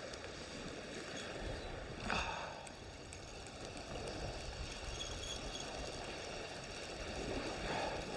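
Wind rumbling on the microphone over a steady wash of shoreline water, with a brief rustle about two seconds in.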